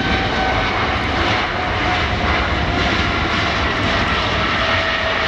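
Boeing 777's twin jet engines running loud on departure: a steady deep rumble with whining tones on top that slowly slide down in pitch.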